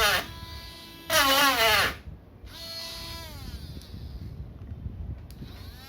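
Dremel rotary tool with a sanding-drum tip sanding a plastic laptop palmrest. Its motor whine is loud and wavers in pitch for about a second while the tip bites into the plastic. It then runs lighter and quieter, with its pitch sliding down and back up.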